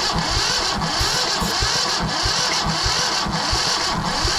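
Yanmar 1500 tractor's diesel engine running steadily with an even, rapid pulsing, having just caught after refusing to start.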